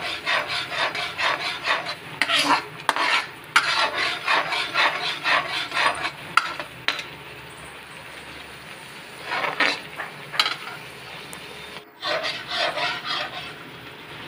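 Steel ladle scraping and stirring frying masala paste around a metal kadhai in quick strokes, about four a second. The stirring stops about halfway, leaving a faint sizzle, then returns in short spells near the end.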